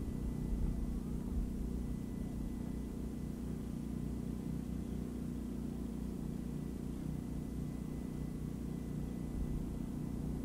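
A motor running steadily, a low, even hum.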